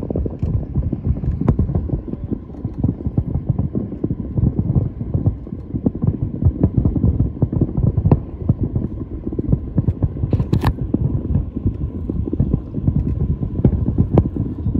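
Wind buffeting the microphone as a steady, fluttering low rumble, with scattered faint clicks and one sharper crack about ten and a half seconds in.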